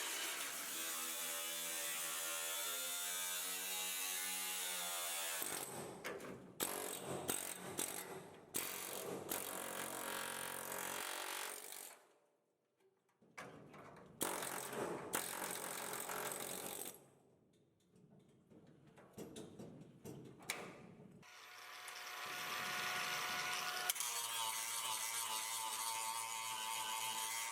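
A hand-held power tool's motor whining steadily, its pitch drifting slightly, then a long stretch of stop-start cutting or grinding against sheet metal with short pauses, before the motor runs steadily again near the end.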